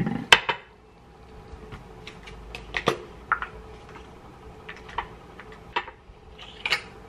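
Plastic cosmetic bottle and tube being handled on a stone countertop: a string of separate sharp clicks and light knocks as the bottle is set down and its cap worked open, the loudest click about a third of a second in.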